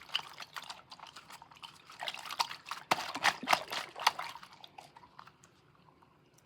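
Wet squelching and dripping clicks from a water-filled giraffe squishy toy being squished, thickest about two to four seconds in, then fading away.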